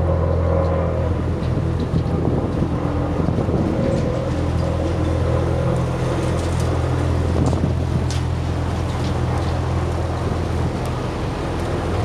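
A heavy engine of nearby road-paving equipment running steadily at an even idle, a low constant drone, with traffic noise behind it.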